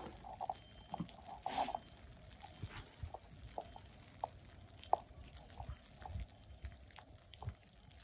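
A metal snow shovel scraping snow off the sidewalk pavement, twice in the first two seconds, then soft, even footsteps in snow with small ticks.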